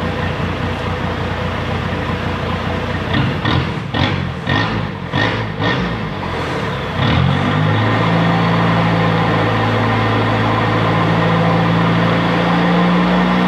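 Isuzu TFR 2500 pickup's 2.5-litre four-cylinder diesel, its exhaust cut to exit ahead of the rear axle. It idles, then is blipped about six times in quick succession, then is held at a steady raised rev for about six seconds.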